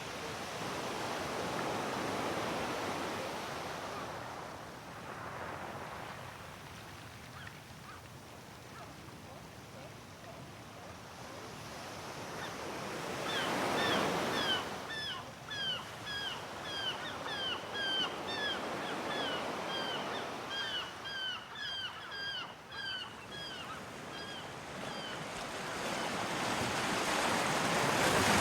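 Sea waves washing in, swelling and fading roughly every twelve seconds. About halfway through, a gull gives a rapid run of short falling calls, about two a second, lasting some twelve seconds.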